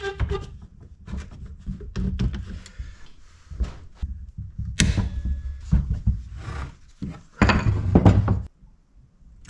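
Steel bar clamps clattering and knocking against the wood and the workbench as they are set and tightened on a glued-up wooden armrest. There are a series of knocks, with a sharp clank about five seconds in and a busy burst of clatter near the end.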